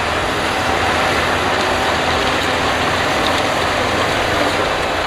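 Heavy earth-moving machine's diesel engine running loud and steady: a dense mechanical din over a low engine rumble.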